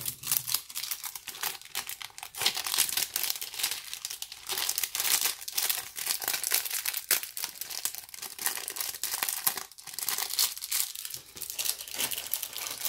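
Clear plastic jewelry bag crinkling and crackling as a necklace on its cardboard card is slid into it and the bag is handled, in irregular small surges.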